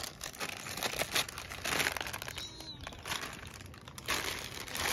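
Clear plastic bag of doll-house accessories crinkling in repeated bursts as it is handled and worked open by hand.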